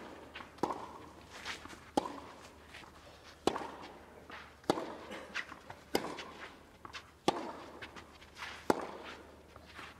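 Tennis rally on a clay court: seven racket strikes on the ball, about one every 1.3 s, some louder and some fainter, with a short grunt or exhalation after a few of the shots.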